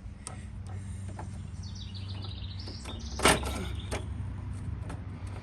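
Screwdriver clicking and scraping against the ignition switch's plastic housing and retaining tabs, with one louder scrape about three seconds in, over a steady low hum. A bird chirps a short rising run of notes shortly before the loud scrape.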